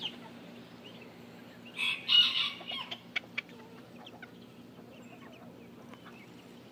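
Chickens clucking, with one loud call about two seconds in that lasts about a second, then a few quieter clucks.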